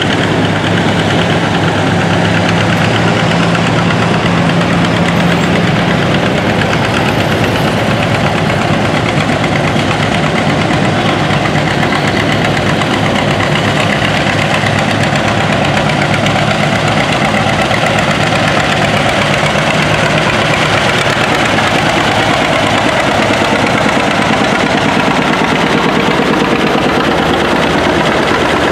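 Engines of old farm tractors running at low speed as they drive past one after another, steady and continuous: a Ford utility tractor, whose engine hum is plainest in the first few seconds, then a John Deere, then an International 660.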